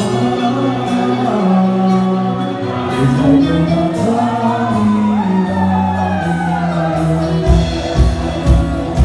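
Live band playing over a club PA, with electric guitars, bass and a sung vocal line. A steady drum beat of about two strokes a second comes in near the end.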